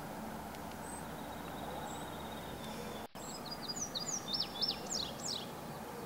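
Steady outdoor background hiss with a few faint high chirps, then a songbird singing a quick run of high sliding notes for about two seconds in the second half. The sound drops out for an instant just before the song.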